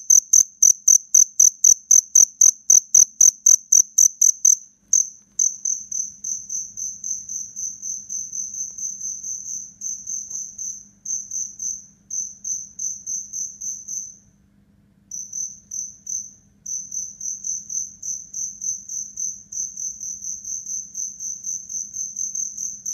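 Black field cricket (two-spotted cricket) chirping: a steady run of short, high chirps, about four a second. It turns softer about five seconds in and breaks off for about a second near the middle before carrying on.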